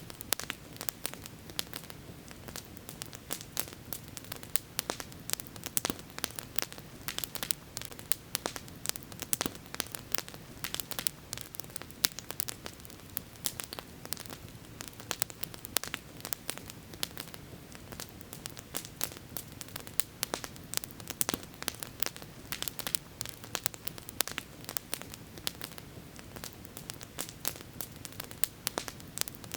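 Campfire crackling: wood burning with many irregular sharp pops and snaps over a steady low hiss.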